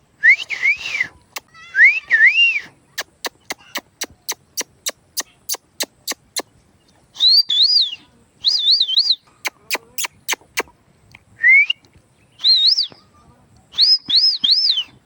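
Pet parrot whistling short phrases that rise and fall in pitch, several in a row. In the middle comes a run of sharp clicks, about four a second, which stops and briefly returns a little later.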